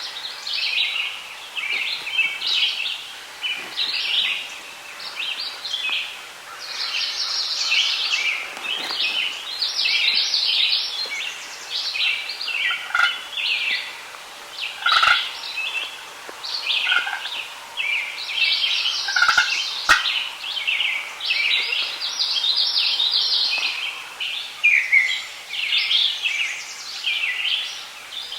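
Chorus of songbirds, many overlapping high chirping and trilling songs without pause. A few short, lower-pitched calls stand out now and then in the middle.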